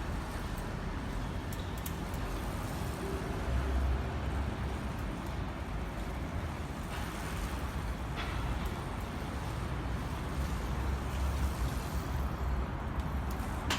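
Wind rumbling on the microphone with road noise while a bike is being ridden, the rumble swelling louder around four seconds in and again about eleven seconds in, with a few faint clicks.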